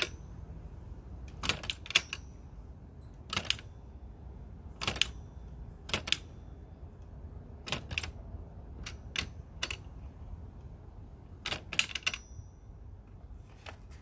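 Merritt index typewriter printing letter by letter: sharp, irregular clacks, often in quick pairs or threes with pauses of a second or so between, a few followed by a short high ring.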